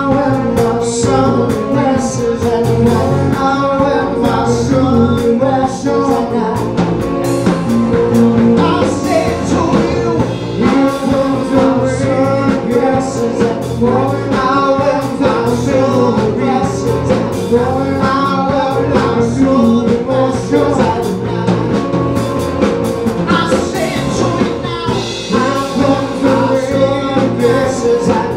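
Live band: a male lead singer singing over electric bass, drum kit and keyboard.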